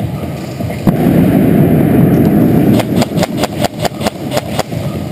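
A loud low rushing rumble for about two seconds, then a quick, irregular run of about ten sharp snaps of airsoft fire.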